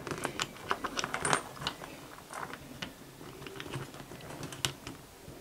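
Small metallic clicks and rattles, irregular and scattered, as a microphone's multi-pin plug is fitted into the front mic socket of a CRT SS 9900 CB radio.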